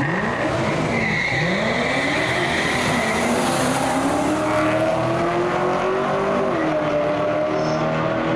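Drag-racing cars launching off the start line and accelerating hard down the strip. Their engines rev in several steep rising sweeps in the first second and a half, then keep climbing more slowly through the gears.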